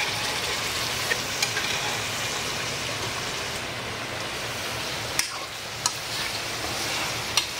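Pork pieces frying in masala in a metal kadhai, a steady sizzling hiss, with a few sharp clicks of a spatula against the pan as they are stirred.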